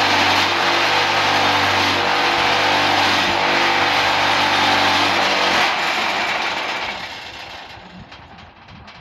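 Concrete block-making machine's vibrator motor running with a loud, steady hum and rattle, then switched off about six seconds in and winding down.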